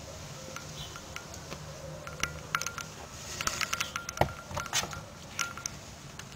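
Kittens scuffling and wrestling in a cardboard box: a flurry of quick scratchy clicks and scrapes from claws and paws on cardboard and cloth, busiest from about two to five seconds in, over a low steady hum.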